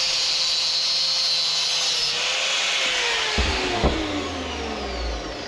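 Handheld power tool running steadily at full speed, then released about three seconds in so that its motor whines down in pitch, with two sharp knocks as it slows. It is being used to work a rubber hose out of a brass faucet tube.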